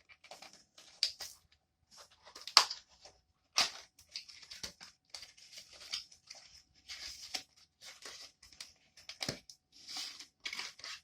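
Packaging of a Repair-It denture repair kit being opened and handled: irregular crinkling and tearing of plastic and cardboard, with sharp clicks and rustles.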